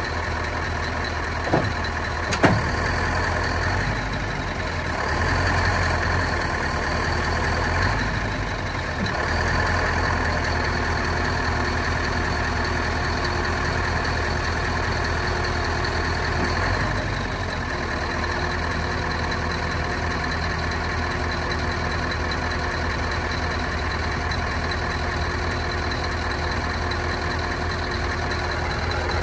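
Scania R500 truck's V8 diesel running steadily while it drives the hydraulics of the JOAB hooklift arm as the arm is lowered and raised, with a steady whine over the engine. The engine note shifts a few times as the load changes, and there are two sharp clunks about two seconds in.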